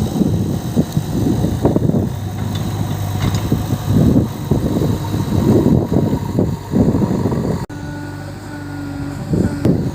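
Diesel engine of a JCB 3DX backhoe loader running under working load, its sound surging unevenly. About three-quarters through it cuts off abruptly and gives way to a steadier engine hum.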